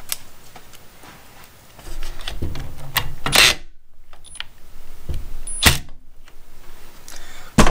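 Scattered clicks, knocks and a brief rustling clatter from handling a cordless circular saw and a driver whose hex bit is fitted into the saw's blade bolt. The loudest burst comes about three seconds in, with a sharp click near six seconds.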